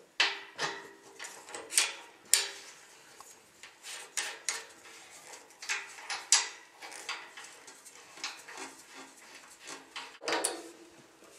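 Sharp metal clicks and light knocks of a radiator valve's compression nut and fitting being handled and pushed onto a copper pipe, irregular and a second or so apart, with a louder clank near the end.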